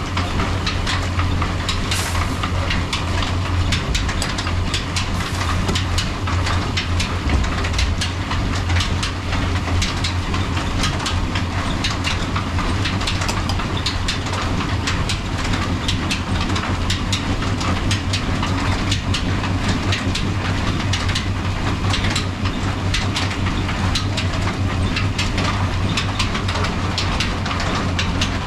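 Belt-driven stone flour mill (atta chakki) running and grinding grain: a steady low drone with a constant fine clatter.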